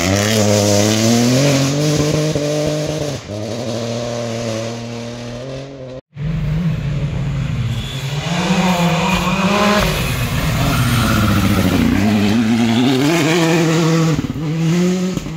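Rally cars at full speed on a dirt stage: the first car's engine revs hard and shifts gear as it passes, with a steady hiss from the tyres on the loose surface. After a cut about six seconds in, a second car comes up and passes, its engine pitch rising and falling through the gear changes.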